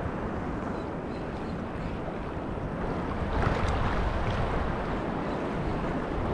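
Wind on the microphone over sea waves washing on a rocky shore: a steady rushing noise that swells a little about three seconds in.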